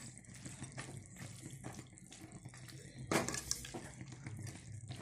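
Metal ladle stirring and scraping pieces of chicken around a metal kadai, with a frying sizzle underneath: the cooking liquid has boiled off and the chicken is now frying dry. The strokes come in quick repeated scrapes, loudest about three seconds in.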